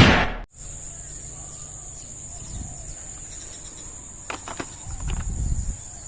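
Rapid machine-gun-style firing, as from a toy gun, cutting off abruptly about half a second in. After it comes a faint steady high-pitched whine, with a few light clicks later on.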